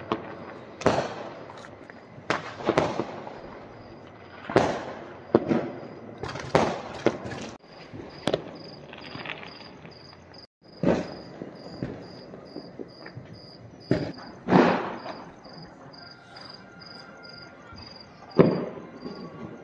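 Diwali firecrackers bursting: a dozen or so sharp bangs at irregular intervals, some in quick pairs, each trailing off in an echo.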